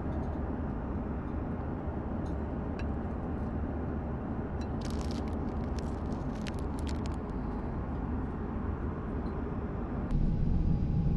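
Steady rumbling hiss of an Airbus A330-300's cabin in cruise, with a few seconds of plastic packet crinkling and rustling in the middle. About ten seconds in, the cabin noise grows louder and a steady hum comes in.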